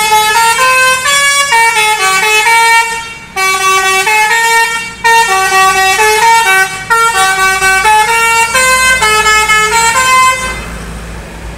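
Bus telolet horn (Basuri) playing a long melody, several horn tones sounding together and stepping from note to note. It stops about ten and a half seconds in, leaving a low rumble.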